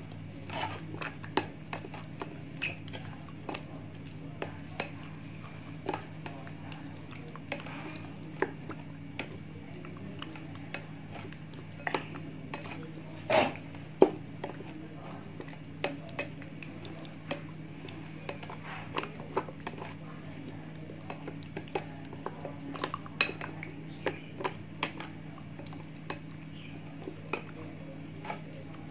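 Wooden chopsticks stirring chicken wings in beaten egg and tapioca starch in a glass bowl, with irregular clicks and taps of the chopsticks against the glass. A steady low hum runs underneath.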